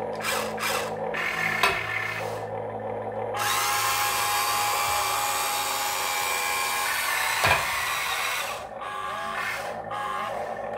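Huina 1592 radio-controlled toy excavator's electric motors and plastic gearboxes whirring as it works its boom and swings, in a few short bursts at first, then one long steady whir from a few seconds in until near the end. Sharp clicks come twice, about two seconds in and again shortly before the long whir stops.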